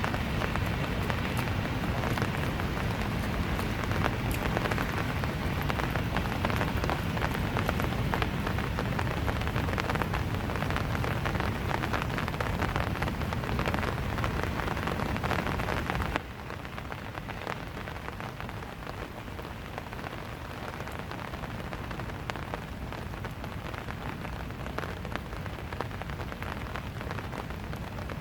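Steady rain falling, with many individual drops ticking on surfaces. Just past halfway the sound drops suddenly to a quieter level of rain.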